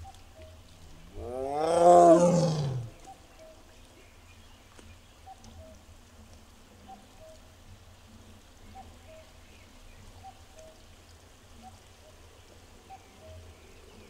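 Amur tiger giving one long roaring call about a second in, rising then falling in pitch and lasting about a second and a half. Faint short chirps repeat about once a second in the background.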